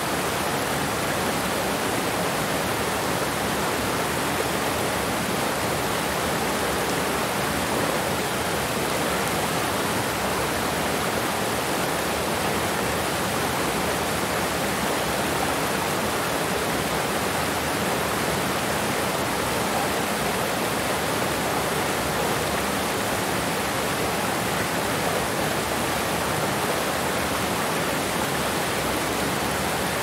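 Waterfall: a steady, even rush of falling water that holds the same level throughout.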